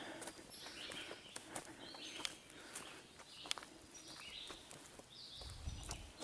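Footsteps on a dirt trail strewn with dry leaves, at a walking pace, heard as faint scattered crunches. Faint bird calls sound in the background, and a brief low rumble comes near the end.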